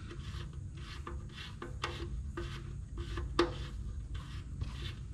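Braided oil-line fittings being worked and tightened by hand onto a dry-sump oil pan: soft rubbing and scraping with a few sharp clicks, the loudest about two and three and a half seconds in.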